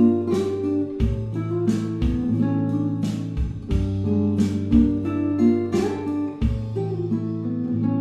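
Background music: acoustic guitar playing plucked and strummed chords.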